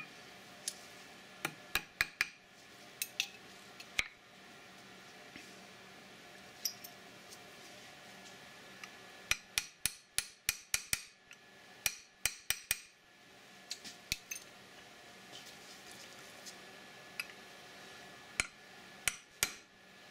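Scattered sharp metallic clicks and clinks from 2/0 taper pins being handled and fitted into the pin holes of an AR-15 gas block, coming in quick clusters about nine and twelve seconds in.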